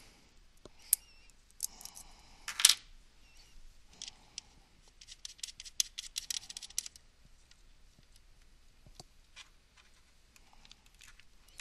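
Small metal nuts clicking and scraping as they are picked up and set onto the mounting studs of a Cisco DFC3 daughter card. Scattered sharp clicks, with a quick run of ticks about five to seven seconds in.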